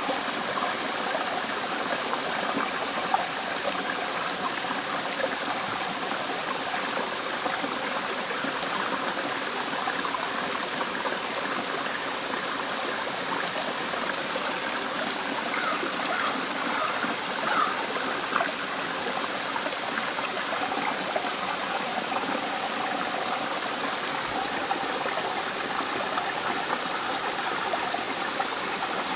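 Small woodland waterfall trickling and splashing down a rock ledge into a pool: a steady rush of falling water.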